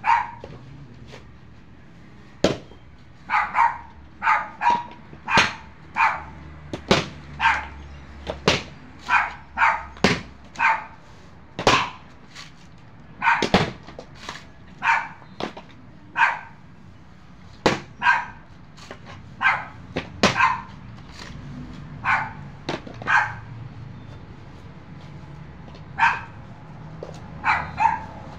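A dog barking over and over in short single barks, interleaved with sharp chops of a machete blade striking coconuts, roughly one every one to two seconds.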